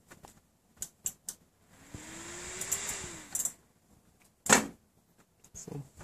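A PC case fan is briefly powered: it spins up with a rush of air and a motor hum rising in pitch, then winds down as the hum falls away. About a second later comes a single sharp snap, the loudest sound, with a few light clicks before the fan starts.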